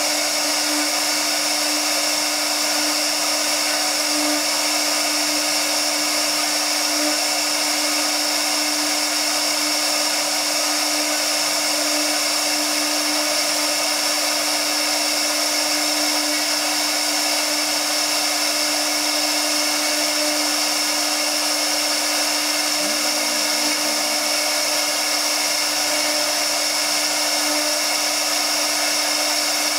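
Spindle of a Tiptopcnc 1325 CNC router running steadily while its bit carves a relief into MDF board: a constant whine over the even hiss of the cut.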